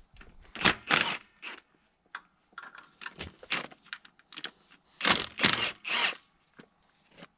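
Irregular sharp metallic clanks, clinks and scrapes of hand tools against engine parts being worked on by hand, loudest about a second in and again around five to six seconds in.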